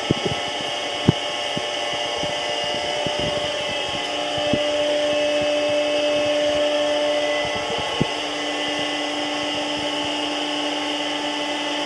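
Tormach 1100 CNC mill running a cycle with the spindle turning and flood coolant spraying: a steady machine whine over a hiss of spray. A second steady tone joins about four seconds in as the table travels. Scattered sharp ticks come in the first part.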